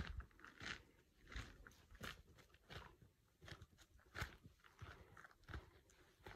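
Faint footsteps crunching on dry forest ground, a steady walking pace of about three steps every two seconds.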